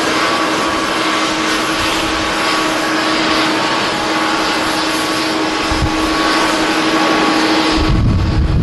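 Jet airliner's engines running loud: a steady rushing noise with a held whine. About eight seconds in the rushing thins and a low rumble comes in.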